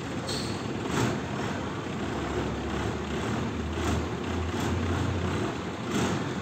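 Diesel bus engine running, its low drone growing stronger through the middle, with a few short clicks.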